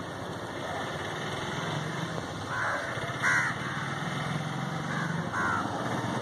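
Crows cawing: several short harsh caws, the loudest about three seconds in, over a low steady hum.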